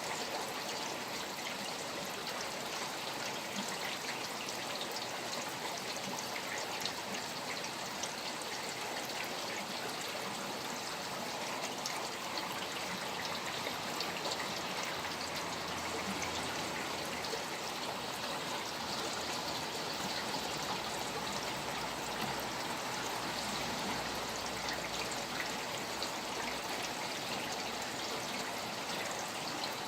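Steady rain falling beside flowing water: an even wash of running-water sound dotted with many fine drop ticks.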